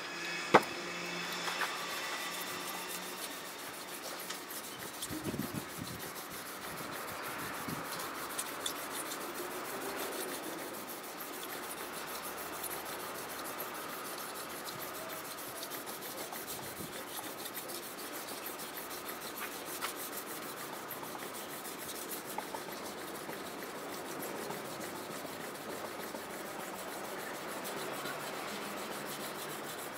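Steel kitchen-knife blade being stroked back and forth on a wet Tanba aoto natural whetstone, giving a steady gritty rubbing and scraping. There is one sharp click about half a second in.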